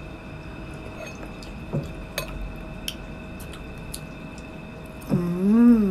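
Wet mouth sounds and soft clicks of someone chewing a grape, then near the end a loud closed-mouth hum, "mmm", that rises and falls in pitch.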